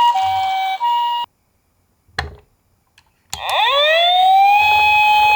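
Toy ambulance's electronic siren alternating between a high and a low tone about twice a second. It stops abruptly about a second in. After a short silence broken by a single click, a siren starts up again, sliding up in pitch into a steady wail.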